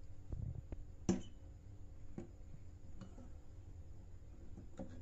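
A treble compression driver and its plastic horn handled on a tabletop: a few sharp clicks and knocks over a low handling rumble, the loudest about a second in.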